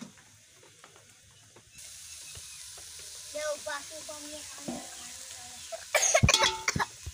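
Metal ladle knocking and scraping in an aluminium cooking pot of cooked cluster-bean sabzi, a quick cluster of clatters near the end.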